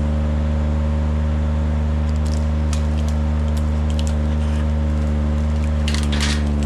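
Kranman Bison 11 000's engine running steadily under hydraulic load while its Jobo ST35 harvester head feeds a pine stem, with scattered snaps and cracks of branches being delimbed, a cluster of them near the end.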